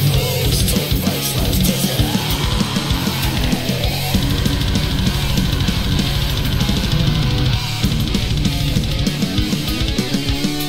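Heavy metal with distorted electric guitars and a drum kit playing fast, dense kick-drum patterns.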